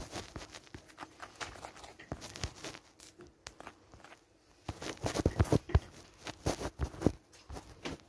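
Irregular scattered clicks and knocks of background noise, sparse around the middle and bunched together about five to seven seconds in.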